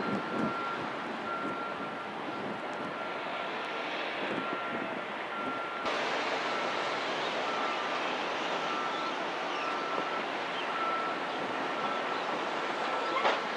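Steady outdoor wash of construction-site noise, like wind, with a faint on-and-off high tone throughout and one sharp knock near the end.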